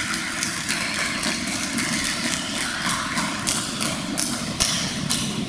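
Audience applauding: a dense, irregular patter of many hands clapping.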